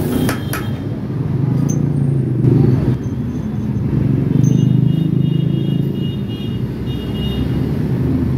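Motor vehicle engines rumbling in passing road traffic, swelling twice. Two sharp clicks just after the start.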